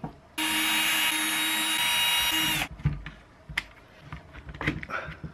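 A small electric power-tool motor whines steadily for just over two seconds, then stops abruptly. A few light knocks of handling follow.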